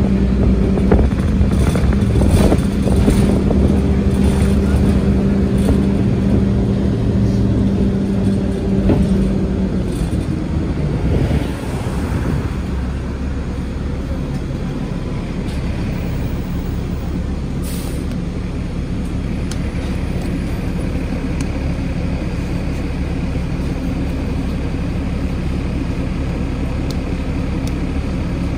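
Nova Bus LFS city bus heard from inside the cabin: it drives with a steady drivetrain whine, slows to a stop about ten seconds in, and then idles. A short hiss comes partway through the idle.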